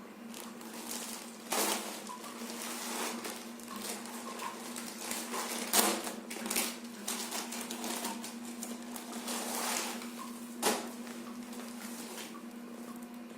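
Packaging being handled: irregular rustling with several sharp clicks or taps, the loudest about six seconds in, over a steady low hum.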